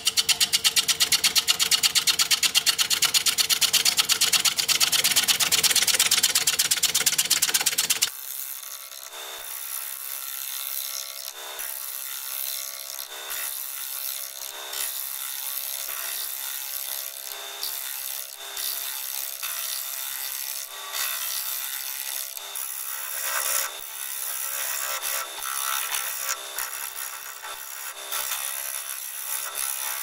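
A 5/8 inch bowl gouge cutting the bottom of a spinning juniper bowl blank on a wood lathe at about 500 RPM. For the first eight seconds the cut is interrupted, a fast, even rattle of about eight hits a second as the gouge meets the uneven blank on each turn. It then changes suddenly to a quieter, hissing cut with soft irregular knocks.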